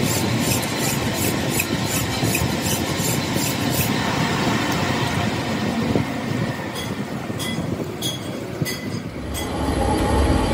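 Harsh, continuous metalworking machine noise with a metallic screech. A pulse beats about three times a second for the first four seconds, then a few sharp ticks come about every half second, and a deeper hum comes in near the end.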